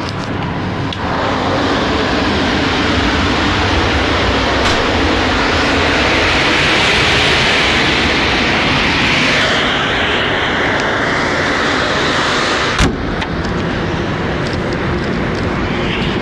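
Steady loud rush of compressed air as the EU06 electric locomotive's air reservoirs are filled from an external 9 bar supply. A single sharp knock comes near the end, after which the rush continues somewhat duller.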